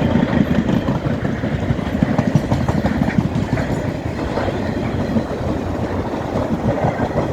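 Freight train wagons rolling past, their wheels clattering over the rail joints in a quick, uneven rhythm.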